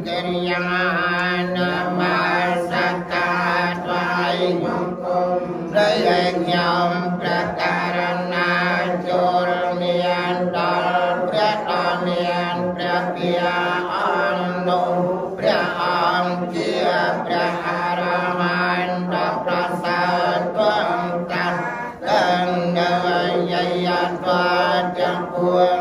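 Group of Buddhist monks chanting together in a continuous recitation, held on a steady low note, with a short breath pause about 22 seconds in.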